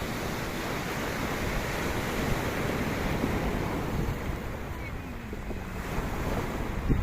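Sea waves washing in and out along the shore, with wind buffeting the microphone. A short low thump just before the end.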